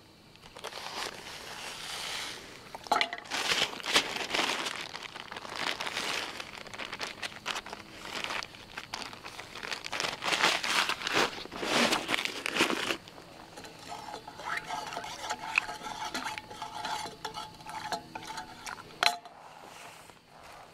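A wooden spoon stirring and scraping in a stainless steel camp mug of tea, with clinks against the metal and a plastic ziplock bag crinkling. The stirring stops about two thirds of the way through and it goes quieter, with one sharp click near the end.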